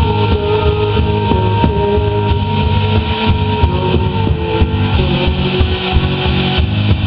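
Live rock band playing an instrumental passage: electric guitar, bass and drums, with long held notes over the beat.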